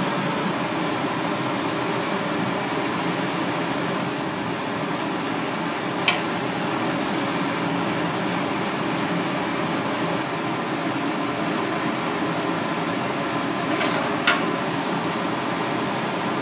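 Steady rushing hum of a kitchen ventilation fan, with two short sharp clicks, one about six seconds in and one near the end.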